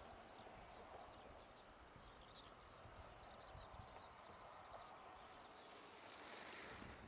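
Near silence: faint, short high chirping calls repeat irregularly throughout, and in the last second or so a soft rushing noise rises as a bicycle towing a cycle trailer rolls past.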